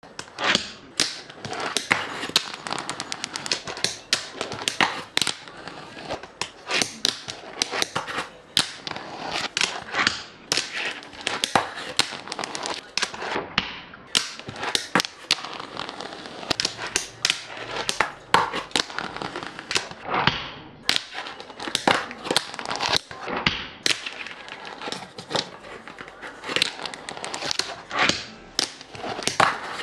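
Fingerboard clacking on a desktop: rapid, irregular clicks and taps, several a second, as the little deck pops and its wheels land and roll.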